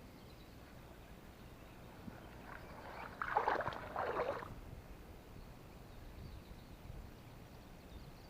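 Two quick splashes of water about three and a half seconds in, from a hooked perch pulled up out of the water without much fight.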